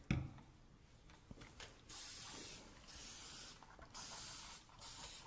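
Water being sprayed onto hair to wet it before shampooing, heard as a soft hiss in stretches of a second or two. A short knock comes right at the start.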